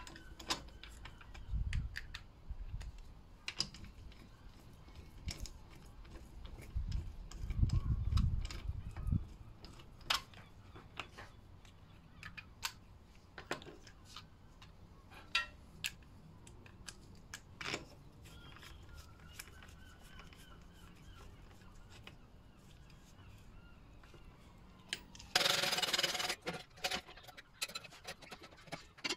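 Scattered light metallic clicks and clinks of wheel bolts and hand tools as a car's road wheel is refitted. There is a low rumble about eight seconds in, and a loud noisy burst lasting about a second near the end.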